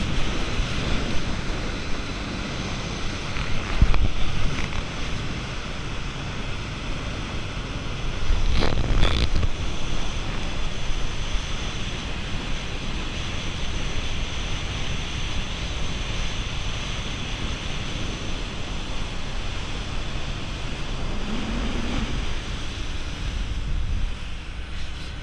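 Rushing spray and bow wave along the hull of a fast-running aluminium passenger boat, with heavy wind noise on the microphone. A few louder knocks stand out, about four and nine seconds in.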